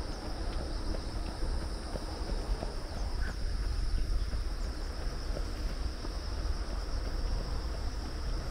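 Insects chirring steadily on a continuous high pitch, over a louder low rumble of wind and movement on the microphone.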